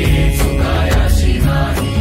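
Background music: an instrumental break in a Marathi devotional song to Vitthal, with a steady drum beat over heavy bass.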